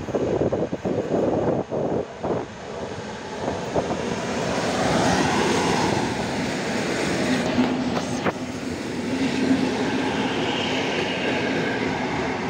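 EN57 electric multiple unit running on the track. Its wheels knock over rail joints in the first couple of seconds, then it settles into a steady rumble with a low hum.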